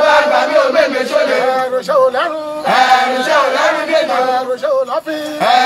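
A group of men chanting together in loud, overlapping voices.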